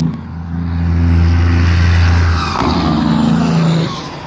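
Motor vehicles passing close by: a loud, steady low engine hum, with a rush of engine and tyre noise that swells and fades over the second half.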